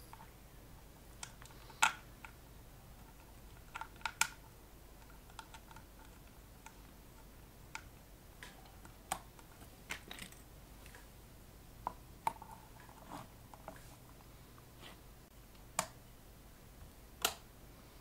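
Sparse light clicks and knocks of things being handled on a workbench, about a dozen spread irregularly, a few with a short metallic ring, over a faint steady low hum.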